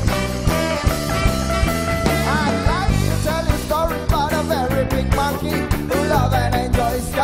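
Live band playing an upbeat rock song: a male lead vocal over electric guitars, bass guitar and drums with a steady beat.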